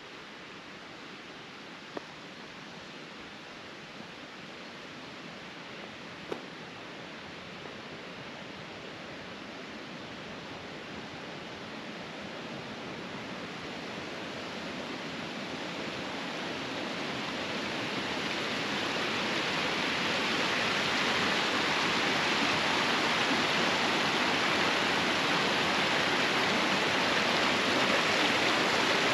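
Rushing mountain water, a steady hiss that grows much louder from about ten to twenty seconds in, as the water gets closer, then holds. A few faint taps sound in the first eight seconds.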